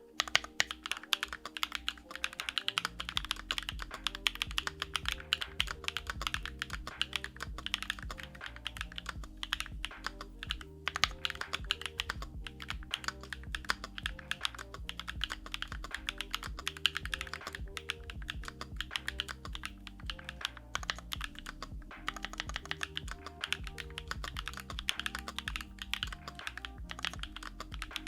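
Fast, continuous typing on a Sakura Studio Fuji 65 mechanical keyboard with factory-lubed JWK Night Sakura switches on an aluminium plate, a steady stream of key clacks with brief lulls a couple of times. Background music plays underneath.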